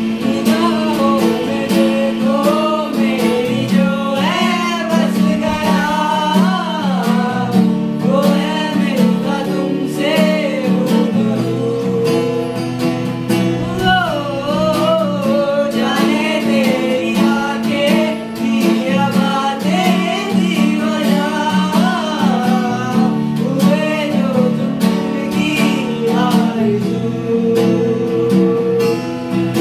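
A man singing a Hindi song unplugged, with a wavering melody, over an acoustic guitar strummed steadily.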